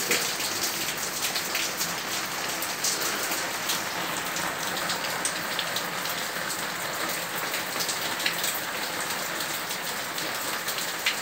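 Steady rain, with water running off a roof edge and many close drops spattering.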